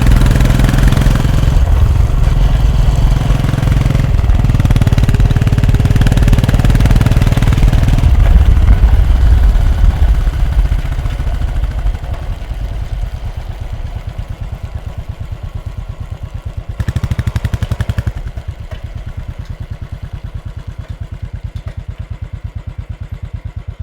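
Royal Enfield Bullet motorcycle's single-cylinder engine running loudly at raised revs, then dropping about ten seconds in to a slow, even thumping idle. Later there is a short blip of the throttle before it settles back to idle.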